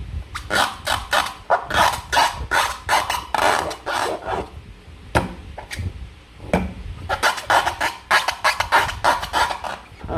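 Slime being squeezed and worked by hand, a quick run of short sticky squelches and crackles, thinning out for a moment around the middle.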